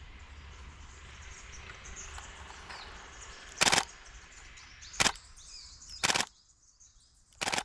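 Canon EOS 7D Mark II DSLR shutter and mirror firing in four short bursts of rapid continuous shooting while tracking a bird.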